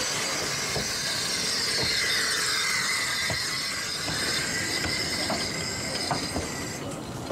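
Narrow-gauge train running along the rails, its wheels squealing in several high, wavering tones, with an occasional click of wheels over rail joints.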